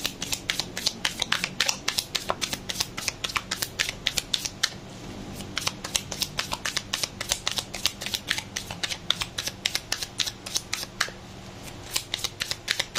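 A deck of tarot cards being shuffled by hand, packets slid from one hand to the other in an overhand shuffle. It makes a rapid run of crisp card clicks and slaps, with a couple of short pauses.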